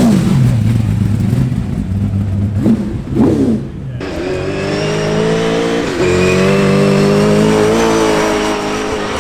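Performance car engines. One is revved twice in quick blips, then the sound cuts to another engine running at a steady, slowly rising pitch.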